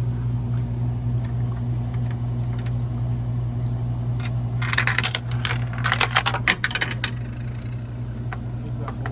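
Coins dropped into a drink vending machine's coin mechanism clatter and rattle through in two quick bursts about halfway in, over a steady low hum. The coins fall straight through instead of catching, because the coin mechanism is jammed.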